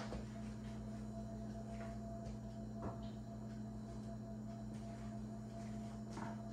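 Quiet kitchen room tone with a steady low electrical hum. Three light taps, one at the start, one about three seconds in and one near the end, as glass bowls are handled on the wooden counter.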